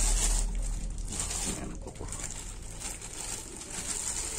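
Clear plastic bag crinkling and rustling in irregular bursts as the cordless angle grinder wrapped in it is handled and lifted out of its cardboard box.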